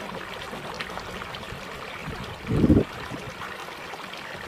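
Shallow ditch water trickling steadily, with faint scattered ticks. A brief low rumble about two and a half seconds in is the loudest sound.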